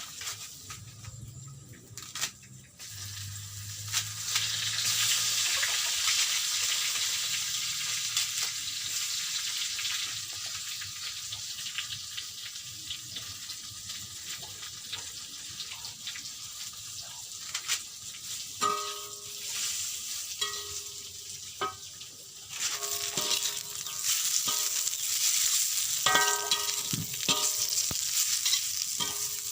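Wild mustard greens sizzling in a hot pan while being stirred. The sizzle gets louder about four seconds in. From a little past halfway, a metal spatula clinks and scrapes against the pan in short ringing strikes.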